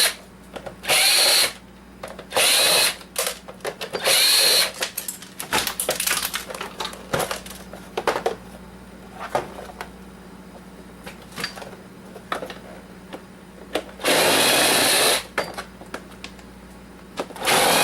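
Power drill/driver backing out screws, running in short bursts of about a second each: four in the first five seconds and a longer one near the end. Small clicks and clatter of parts and screws come in between.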